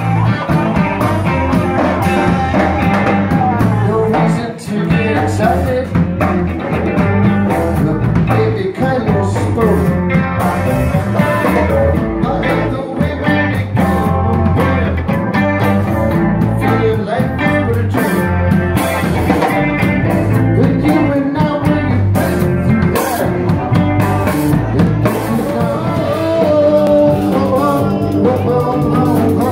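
Live rock band playing at full volume: two Stratocaster-style electric guitars, electric bass and a drum kit keeping a driving beat.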